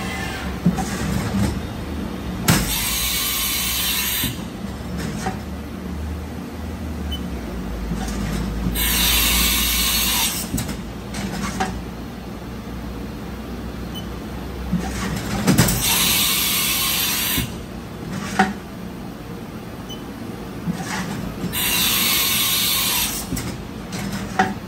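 Steady low machine-shop hum with four hissing bursts, each lasting a second and a half to two seconds, spaced about six seconds apart, and a few sharp clicks in between.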